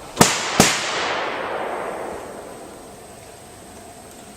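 Two loud, sharp bangs about half a second apart, followed by a long fading echo.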